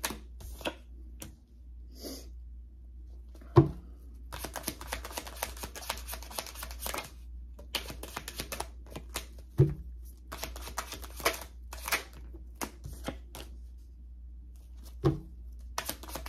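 Deck of tarot cards shuffled by hand: long runs of rapid flicking clicks as the cards slide over each other, broken by three louder single knocks about six seconds apart.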